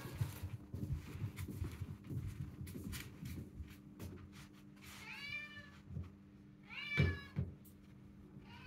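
Domestic cat meowing twice, about five and seven seconds in, each call rising and then falling in pitch, with a third call starting at the very end. Light taps and knocks come before the meows.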